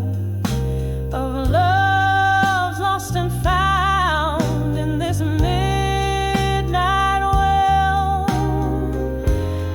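Slow soul-blues ballad: long held melody notes with vibrato, sung without words, over a bass line that steps from note to note.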